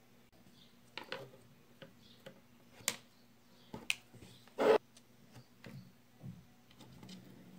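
Small metal reel parts and tools clicking and knocking on a tabletop as a baitcasting reel is taken apart: scattered single clicks, a sharp one about three seconds in, and the loudest, heavier knock near five seconds, over a faint low hum.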